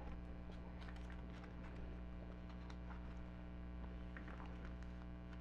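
A steady electrical mains hum, with faint scattered clicks and rustles from trading cards being handled and slid into a plastic binder sleeve page.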